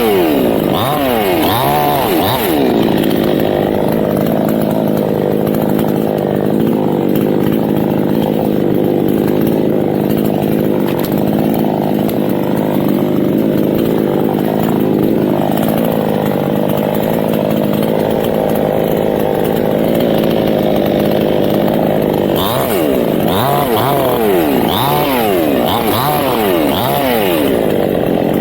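Chainsaw revving up and down in the first few seconds and again near the end, held at steady full speed for about twenty seconds in between while cutting teak wood.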